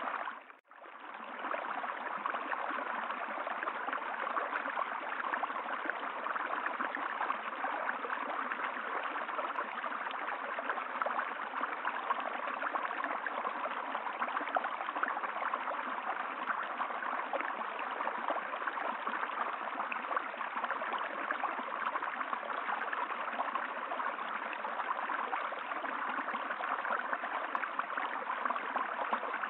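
Steady rushing of a flowing stream. It drops out for a moment about half a second in, then fades back up and runs on evenly.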